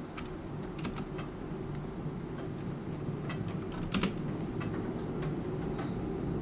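Computer keyboard typing: scattered keystroke clicks, with short clusters about a second in and about four seconds in, over a steady low rain-like background.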